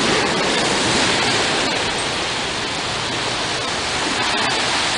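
Steady rushing noise of small waves washing along the beach shore.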